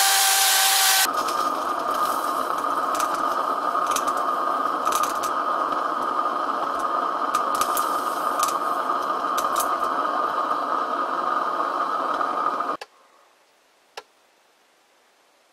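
A drill running in the bore of a cast-iron lathe pulley for about a second. Then a gas torch burns inside the bore with a steady hissing flame and a steady tone, burning off residue left in the pulley's cavities. The flame cuts off sharply near the end, followed by one faint click.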